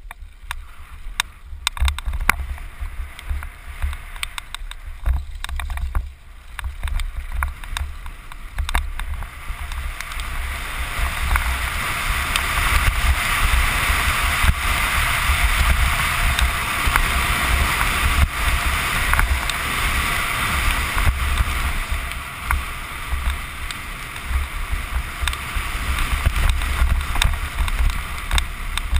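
Downhill mountain bike ridden fast, heard from a helmet camera: wind buffeting the microphone with a low rumble, tyres rushing over dirt and grass, and the bike rattling with frequent clicks and knocks over bumps. The rushing noise grows louder and steadier from about ten seconds in.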